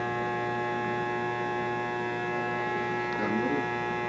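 Electric hair clippers buzzing steadily during a haircut, a constant mains-pitched hum. A brief voice sound rises over it near the end.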